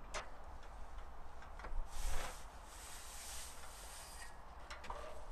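Scattered light clicks and knocks from an aluminium scaffold tower as workers climb and handle it, with a hiss lasting about two seconds in the middle and a steady low rumble underneath.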